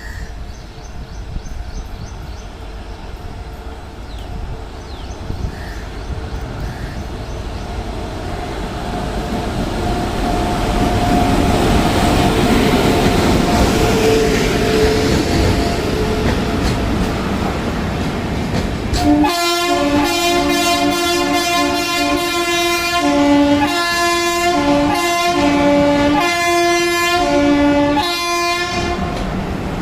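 Shatabdi Express passenger train approaching, its rumble growing louder. About two-thirds of the way in, the locomotive's horn starts honking in a rapid series of short, loud blasts, repeated continuously.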